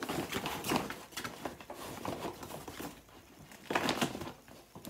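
Stiff recycled sailcloth rustling as a sewn tote bag is pushed and pulled by hand to work its corners right side out. It comes in uneven bursts, strongest at the start and again about four seconds in, with a quieter moment just before.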